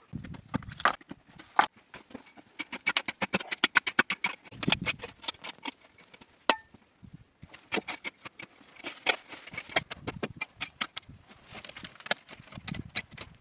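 Rapid, irregular runs of sharp knocks and clicks from hand-tool work on wood, with a brief metallic clink about halfway through.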